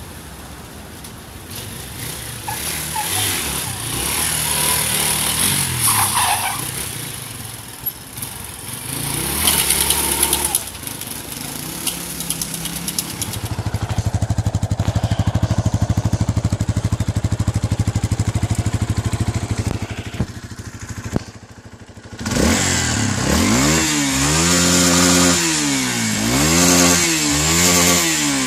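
Yamaha Tricker 250's single-cylinder four-stroke engine in several clips: accelerating and pulling away, then running at a steady pitch, then revved up and let fall back several times in a row near the end.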